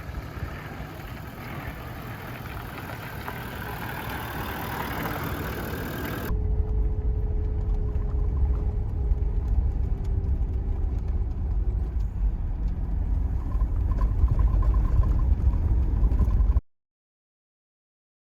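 Vehicle driving: a steady low rumble of engine and road noise that starts suddenly about six seconds in, after an even hiss, and stops abruptly a couple of seconds before the end.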